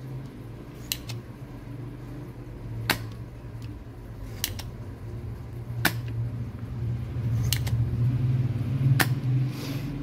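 Spring-loaded desoldering pump (solder sucker) being cocked and fired: about half a dozen sharp clicks, some in quick pairs, as solder is sucked off the pins of a shorted FET on a power-supply board. A low hum runs underneath and grows louder in the second half.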